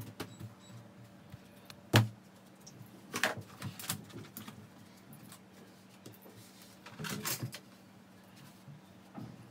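Household handling sounds of a room being tidied: a sharp knock about two seconds in, then scattered rustling and small clatters as objects and papers are picked up and put away.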